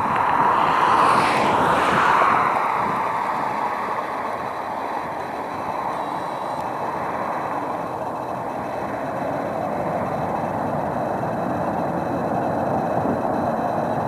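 Tupolev Tu-160's four NK-32 afterburning turbofans on full afterburner during the takeoff run: a steady jet roar, loudest with a sharp hiss a second or two in.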